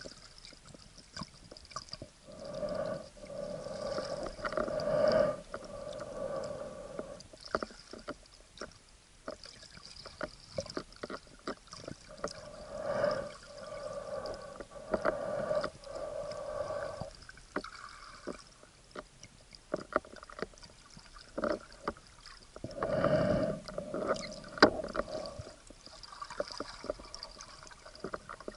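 Muffled water sounds heard through an action camera's waterproof housing underwater: irregular swells of swishing with a hollow hum, and scattered clicks and knocks.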